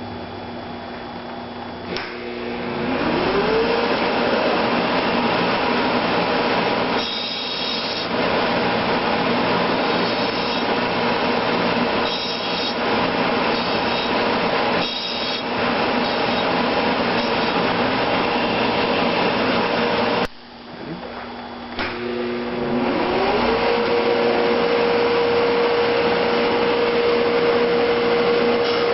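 Blademaster SH5000 skate sharpening machine: its grinding-wheel motor switches on with a click and spins up to a steady whine, and a rasping grinding noise comes and goes over it as the skate blade is ground. About twenty seconds in the machine cuts out, then clicks on again and spins back up to the same steady pitch.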